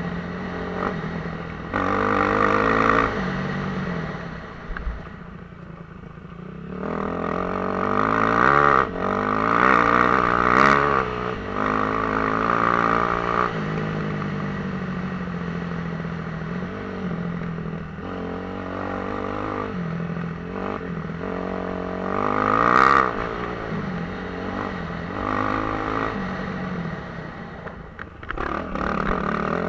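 Suzuki RM-Z250 dirt bike's four-stroke single-cylinder engine being ridden hard, revving up and down with the throttle and gear changes. It falls to a lower, quieter note about five seconds in, then climbs sharply around ten seconds and again near twenty-three seconds.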